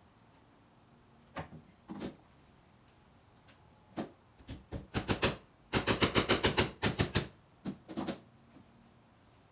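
Hammer tapping a small nail into a wooden window frame. There are a few separate taps at first, then a quick run of about ten light strikes about six seconds in, then two more taps near the end.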